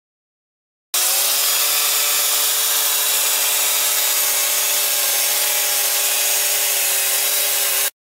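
Homemade gas-engine band sawmill running and sawing through a wooden cant: a loud, steady engine-and-blade drone with a hissy cutting noise. It starts abruptly about a second in and cuts off abruptly just before the end.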